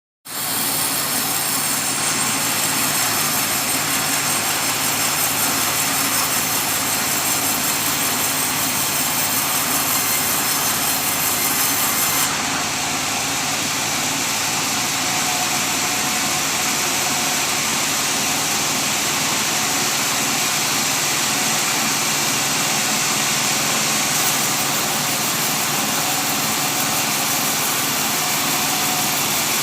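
Sawmill running steadily while milling teak into beams: a constant machine drone with a strong hiss. It starts abruptly, and its high end shifts slightly about twelve and again about twenty-four seconds in.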